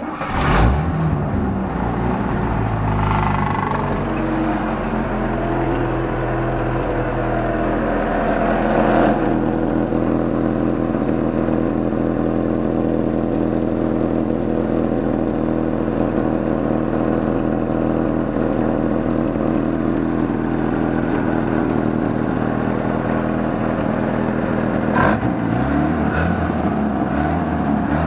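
Chevrolet Opala 1972's four-cylinder engine cranking and catching suddenly, then running with a strong rumble. It swells briefly about nine seconds in, and its note shifts a few times near the end.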